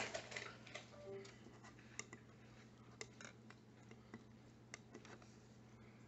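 Near silence with a low steady hum and a few faint, irregular clicks.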